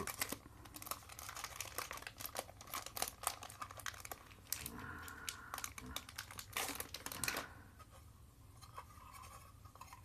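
Small clear plastic packaging bag being crinkled and torn open by hand: a dense run of sharp crackles that stops about seven and a half seconds in, leaving only faint handling sounds.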